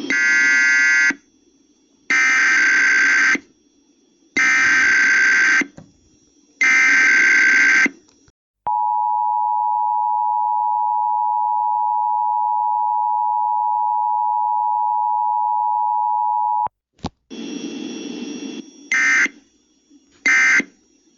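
Emergency Alert System tones for a Required Weekly Test. First come four raspy digital data bursts of about a second each: the SAME header that opens the alert. Then the steady two-tone attention signal (853 and 960 Hz) holds for about eight seconds, and after a short noisy stretch, short end-of-message data bursts follow near the end.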